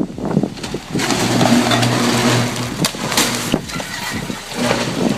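A heavy vehicle engine running steadily, with a couple of sharp knocks about three seconds in.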